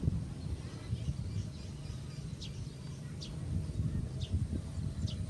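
Low, steady background rumble with a few faint, short, high chirps, roughly one a second in the second half.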